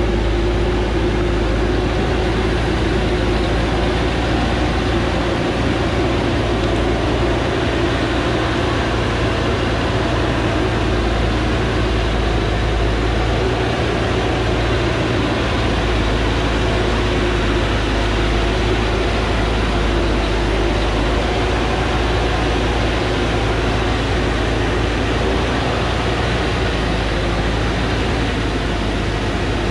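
Diesel engine of a small four-wheel-drive forestry truck running steadily as the truck crawls slowly along a rutted dirt track: a heavy, low drone with a steady hum that does not change much.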